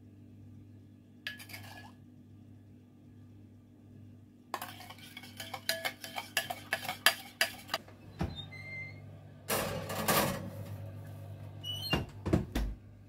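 Metal kitchenware clinking: a quick run of sharp taps and clinks, like a ladle knocking on a metal baking pan. Then come a thump, a louder scraping stretch, and a few clunks near the end as the pan is handled at the oven.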